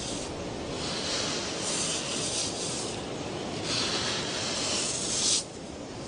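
Sand scraping and hissing in long sweeps as a female crocodile covers her freshly laid nest with sand. The second, louder sweep cuts off suddenly near the end.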